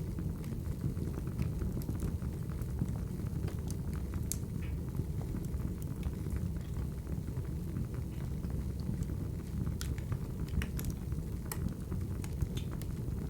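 Wood fire crackling: a steady low rumble of burning logs with scattered, irregular pops and snaps, a few of them sharper than the rest.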